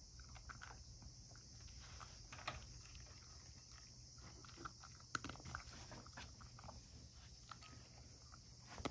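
Cat eating dry kibble from a ceramic bowl: faint, irregular crunching and small clicks, with a sharper click about five seconds in.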